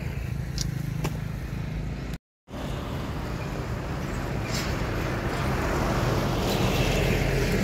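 Motor vehicle traffic going by on a nearby road, its noise building over the last few seconds, with a brief cut to silence about two seconds in.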